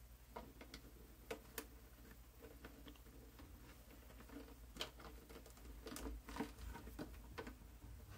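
Faint, scattered clicks and taps of small plastic figures being handled and pressed onto a plastic popcorn-bucket lid.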